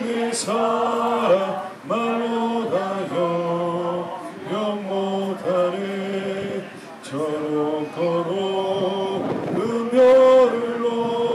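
Voices singing a slow hymn melody in long held notes, with short breaks between phrases and a louder, higher note about ten seconds in.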